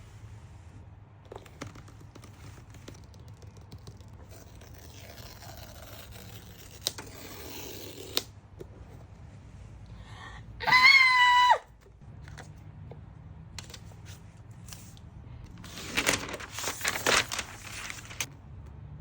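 Packaging being handled during an unboxing: tearing and crinkling of wrap, with one short, loud high squeak about eleven seconds in and a burst of rustling and scraping near the end.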